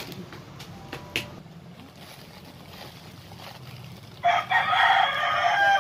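A rooster crowing, starting about four seconds in: one loud, long held call.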